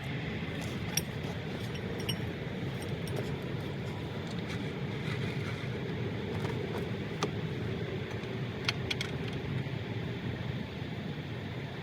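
Steady outdoor background noise with a few light metallic clicks and clinks scattered through it.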